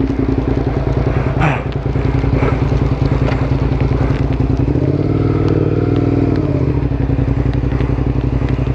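Suzuki SV650S's V-twin engine idling steadily, with one throttle blip that rises and falls in pitch about five seconds in.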